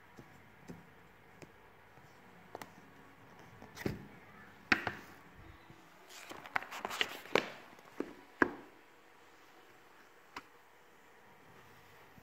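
Cardboard phone box being handled and opened by hand: scattered light taps, then a cluster of cardboard knocks and scrapes in the middle as the lid comes off and the inner box is opened, with two sharp knocks standing out.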